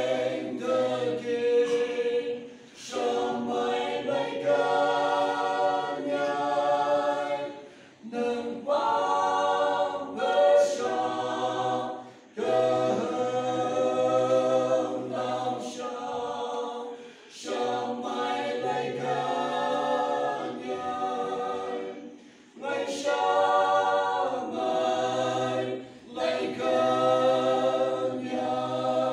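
A small group of men and women singing a hymn in harmony in the Phom language, without instruments, through microphones. The phrases are a few seconds long, with short breaks between them.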